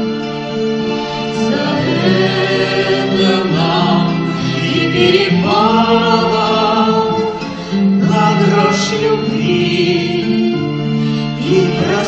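Voices singing a slow Russian romance in long, held notes, with guitar accompaniment.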